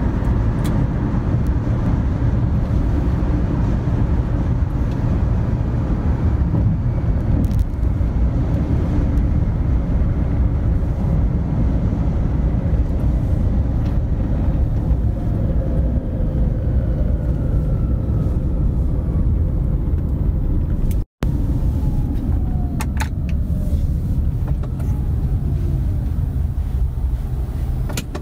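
Road and engine noise heard from inside a moving car: a steady low rumble, broken by a very brief dropout about two-thirds of the way through. Later there are a couple of falling whines as the car slows for stopped traffic.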